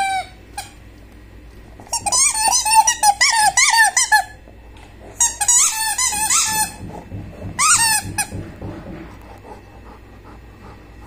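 A golden retriever chewing a squeaky rubber ball, setting off runs of high squeaks. There is one squeak at the start, then three bursts of quick squeaks about two, five and seven and a half seconds in.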